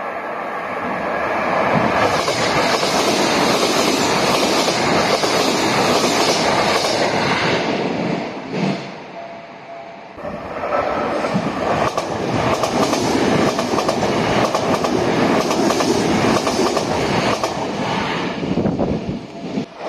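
Electric commuter train running past, steel wheels clattering over rail joints. The sound dies down about eight seconds in, then builds again.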